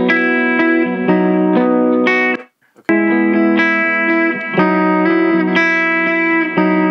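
Playback of a recorded electric guitar through an amp: a repeating riff of plucked notes and chords. It cuts out for about half a second around two and a half seconds in, then the same part starts again.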